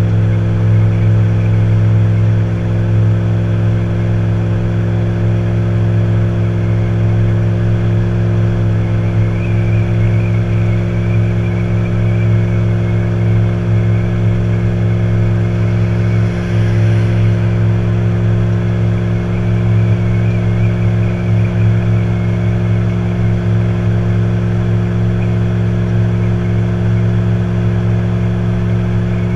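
Tow vehicle's engine and road noise at a steady speed: a loud, constant low hum that barely changes.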